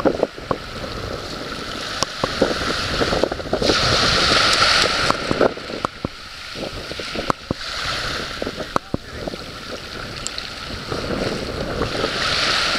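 Sea waves washing on the shore, the hiss swelling and fading about three times, over a low rumble of wind on the microphone, with sharp clicks now and then.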